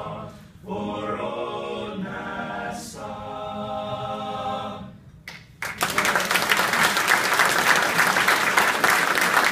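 Male a cappella group singing the closing chords of a fight-song medley, the last chord held and ending about five seconds in. After a brief pause the audience breaks into applause, louder than the singing.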